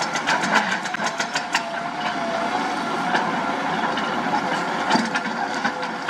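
Diesel engine of heavy earthmoving machinery running steadily, with rapid clicks and knocks over it, thickest in the first second and a half.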